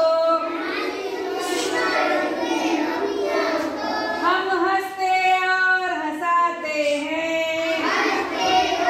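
A group of young children singing a Hindi children's poem together in unison, the sung lines running on without a break.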